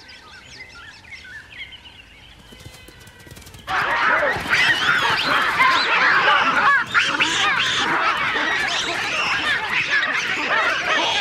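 Baboon troop calling: a few scattered calls at first, then about three and a half seconds in, a sudden loud clamour of many overlapping calls rising and falling in pitch that carries on.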